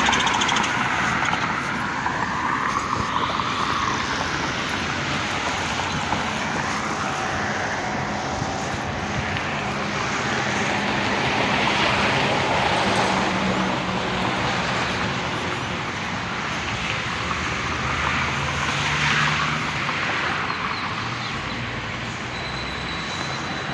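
Steady motor traffic noise, a continuous wash of passing vehicles with slow rises and falls as they go by.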